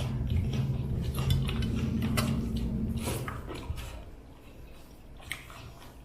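Serving spoon and utensils clinking against plates and bowls as food is served out, a few separate clicks, over a low hum that fades about halfway through.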